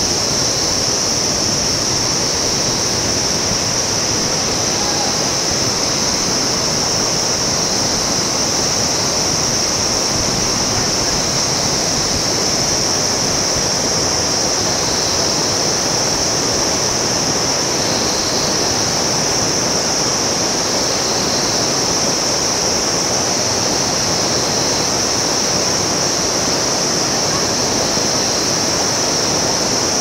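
Steady rush of a fast mountain river, unbroken throughout, with a constant high-pitched hiss sitting over it.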